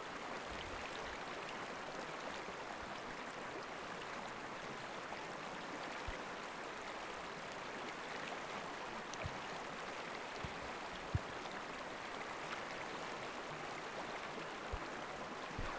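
Steady rushing of river rapids: a field recording of the Rappahannock River's rapids laid under the pictures as a backing track. A few faint low thumps come through it, the most noticeable about eleven seconds in.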